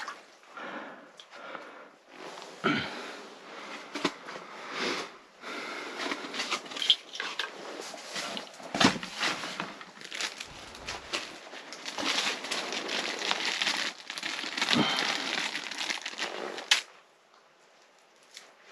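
Irregular crunching, rustling and crackling handling noise as someone moves about on slushy ice and handles fishing gear and a plastic bag, with several sharp knocks; it stops abruptly near the end.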